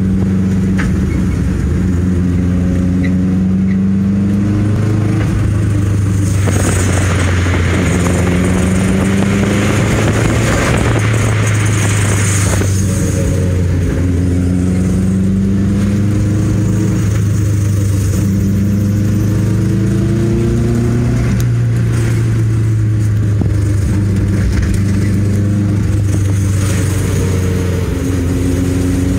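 Subaru Impreza GC8 flat-four engine and drivetrain under way, engine pitch climbing and then dropping back several times as it pulls through the gears, with louder road and engine noise from about six to twelve seconds in. The owner reports a faint 'chiri-chiri' tinkling in normal driving that appeared after a wheel hub replacement.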